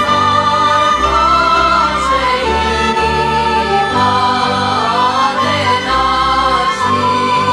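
Background music: a choir singing a slow melody over a low bass line.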